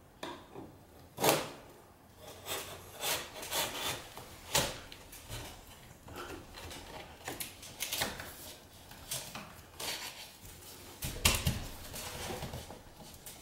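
Sharpened painter's multi-tool scraping and prying along painted wooden window trim, its blade cutting through the paint bond. Irregular scrapes and clicks with a few sharper knocks, the loudest about a second in and near the end.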